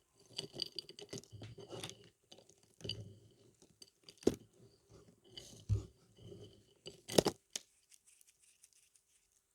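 Bar soap being cut with a knife: dry crackling and crunching as the blade goes through, in several bursts, with three sharp knocks along the way, dying down about a second before the end.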